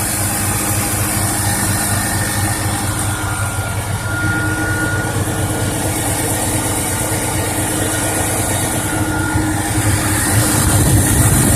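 2000 Lincoln Navigator's engine idling with the air suspension compressor running: a steady hum, with a thin high tone coming in about three seconds in and fading near the end.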